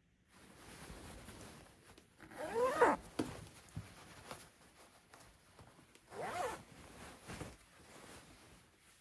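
Windbreaker zipper pulled twice, a quick zip about two and a half seconds in and another about six seconds in, with faint rustling of the jacket between.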